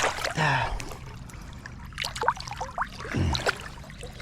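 River water splashing and sloshing in several uneven bursts, near the start and again about two and three seconds in.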